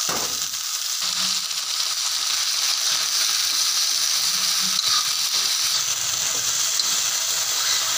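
Soaked chickpeas frying in hot oil in a metal kadhai, sizzling steadily as they are stirred with a spoon; the water on the soaked chickpeas keeps the oil spitting.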